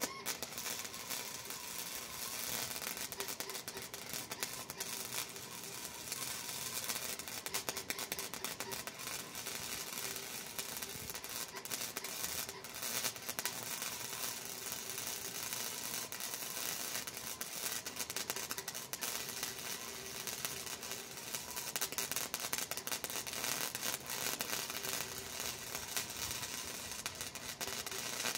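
Wire-feed (MIG-type) welder arc laying a bead on a steel bar: the arc strikes right at the start, then a steady, dense crackle and sizzle.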